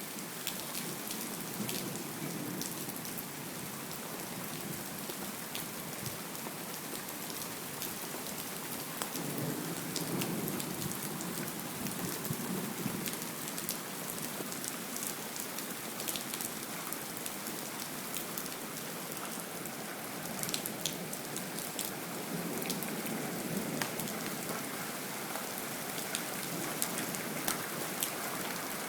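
Steady heavy rain in a thunderstorm, with many sharp drop ticks on hard surfaces, and a low rumble of thunder swelling about ten seconds in.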